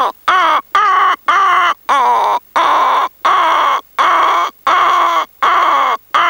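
A man imitating a heron's call by mouth: a loud run of about ten harsh, squawking calls at roughly one and a half a second, each dipping in pitch at its start, with short gaps between them.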